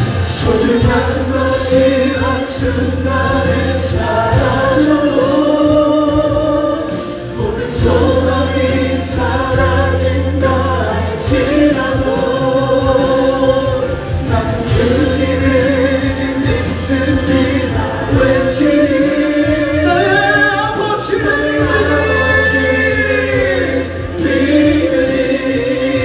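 Christian gospel song sung by a choir with vibrato, over instrumental accompaniment with steady low bass notes.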